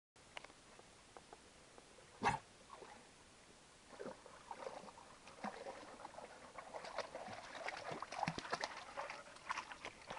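Faint sounds of a dog and footsteps moving through a shallow rocky stream, getting busier from about four seconds in, with one sharp knock about two seconds in.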